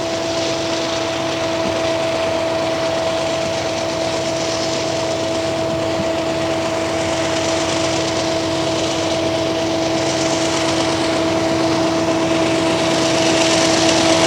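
Diesel-electric locomotives hauling a loaded freight train at full throttle (notch 8) up a steep grade: a loud, steady engine drone with a constant pitched hum, growing a little louder near the end.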